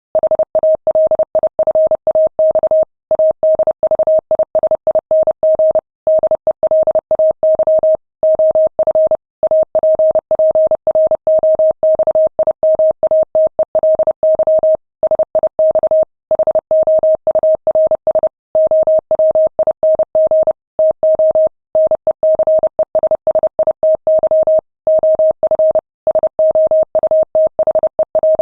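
Morse code keyed at 30 words per minute: a single steady beep switched on and off in rapid dots and dashes, with short breaks between words.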